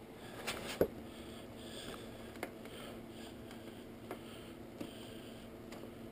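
Faint clicks and taps of a hand tool on metal while a bolt is worked on a motorcycle's front end, the loudest a little under a second in, over a steady low hum and breathing close to the microphone.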